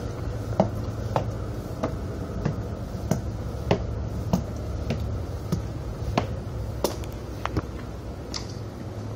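Footsteps climbing a ship's stairway, one sharp step about every 0.6 seconds, over a steady low hum.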